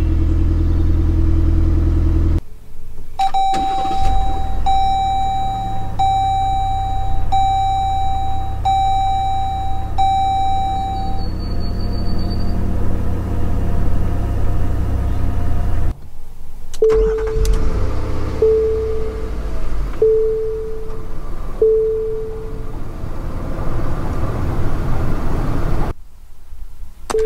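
Cars starting one after another. A steady low idle cuts off. A Jeep Wagoneer's engine starts with a low rumble under its dashboard warning chime, which beeps six times about a second and a half apart. Then a Nissan SUV's engine runs under a lower-pitched chime that beeps four times.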